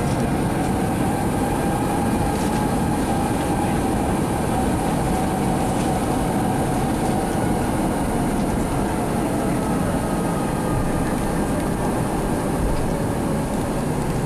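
Airbus A321 cabin noise: the jet engines running at low power with a steady rumble as the airliner taxis onto the runway, with a faint steady whine over it.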